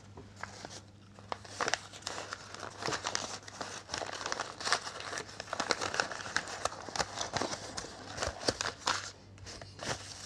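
Brown kraft-paper wrapping being unfolded and crinkled by hand, a busy run of irregular rustles and crackles, over a faint steady low hum.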